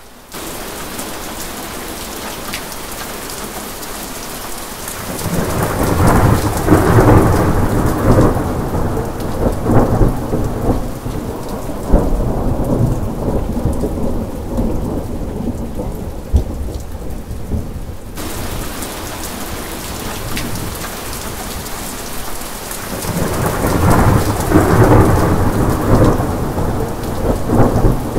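Steady rain with two long rolls of thunder. The first rumble builds about five seconds in and lasts several seconds; the second comes near the end.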